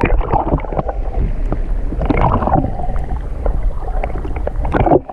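Muffled water rushing and gurgling around an underwater camera, with a steady low rumble and scattered small clicks.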